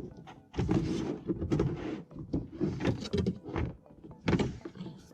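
Irregular knocks, thunks and rustling as the truck's plastic interior trim and the dashcam wire are handled, with a louder knock about a second in and another past the four-second mark.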